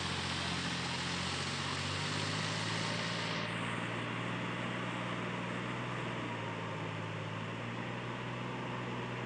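Sonalika DI 740 III tractor's diesel engine running steadily, working under load as it pulls a rotavator through a flooded paddy field to puddle it. The drone holds even, with a slight drop in pitch about two seconds in.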